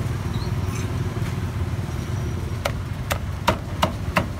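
Cleaver chopping roast meat on a round wooden chopping block: five sharp chops, about 0.4 s apart, in the second half. Under them runs a steady low engine hum.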